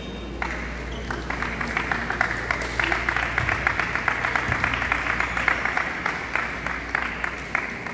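A group of people clapping, a steady patter of claps that starts about half a second in and stops near the end.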